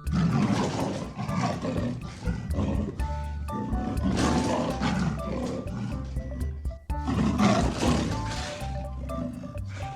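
Background music with an animal's harsh, noisy calls over it, three long calls in turn.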